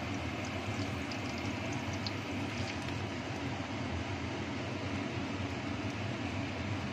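Kitchen range hood extractor fan running steadily and noisily, a constant low hum. In the first few seconds a few light crackles of spice paste hitting hot oil in a non-stick wok.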